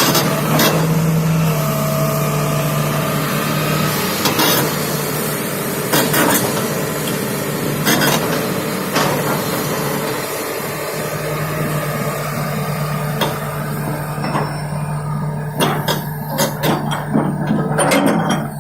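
Hitachi 330H hydraulic excavator's diesel engine running with a steady hum, with metal clanks and knocks at irregular intervals, coming thick and fast near the end.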